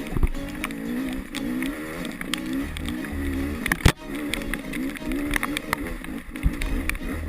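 Off-road motorcycle engine revving up and down in quick waves while riding rough ground, with scattered knocks and clatter and one sharp knock about four seconds in.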